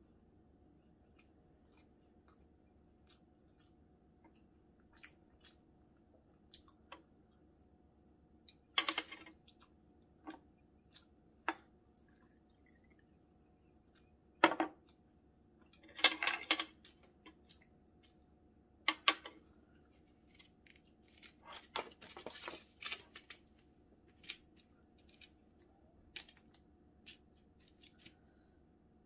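Quiet eating sounds: chewing and mouth noises over scattered small clicks. A few louder knocks and clinks come around the middle as the soju bottle, glass and chopsticks are handled.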